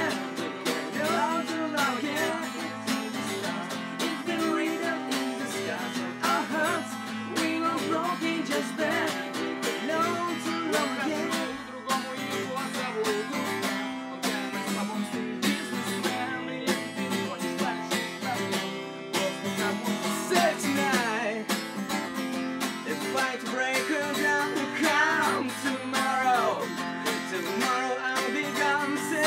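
Two acoustic guitars strummed together, with a man singing over them.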